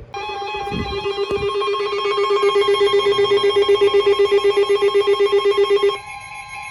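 Electronic emergency alert tones: a rapidly pulsing, buzzing alarm tone, trilling like a telephone bell, sounds over steady higher tones. The pulsing alarm cuts off about six seconds in, leaving the steady tones.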